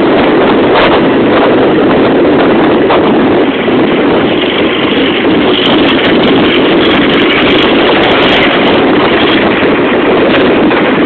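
Loud, steady rushing noise of wind buffeting a phone microphone while moving, with no distinct engine note or rhythm.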